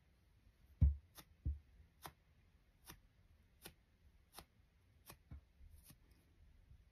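Faint, sharp clicks about once every three-quarters of a second as a fingertip flicks the bristle tip of a dyed-weasel makeup brush, with two soft handling thumps in the first second and a half, the first the loudest sound.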